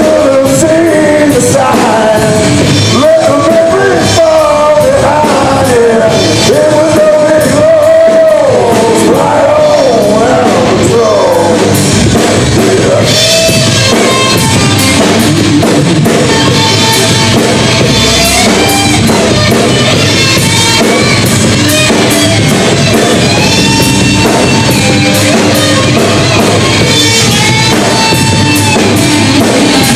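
Live rock band playing loud: a male singer over electric guitars and a drum kit. The singing stops about twelve seconds in and the band plays on without vocals.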